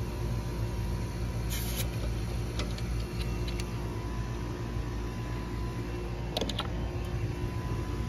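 A steady low machine hum, then about six and a half seconds in the heat pump's contactor pulls in with a few quick clicks, set off by the pressure switch as refrigerant is charged into the system.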